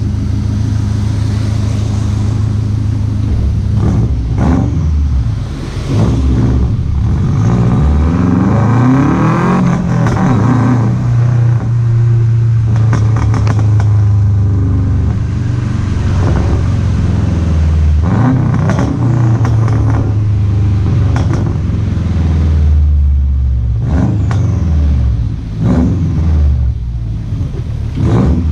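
Subaru flat-four boxer engine with a rumbling exhaust note, its revs rising and falling back several times.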